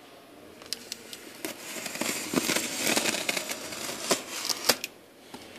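A folding knife slitting clear packing tape along a cardboard box's seam: crackling, scratchy tape-and-cardboard noise with many sharp clicks, starting about a second in and stopping near the end.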